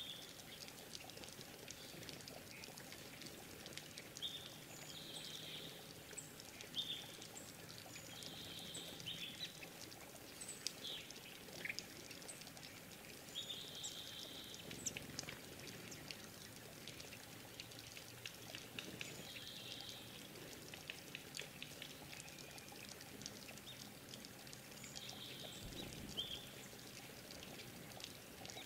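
Small forest birds giving short, high call notes every few seconds, over a steady trickle of water with scattered small ticks.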